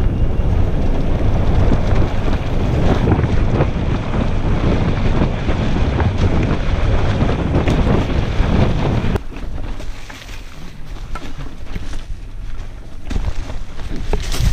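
Wind buffeting a camera microphone on a descending mountain bike, with the tyres rumbling and rattling over a loose dirt trail. About nine seconds in the rumble drops abruptly to a much quieter level with a few scattered knocks.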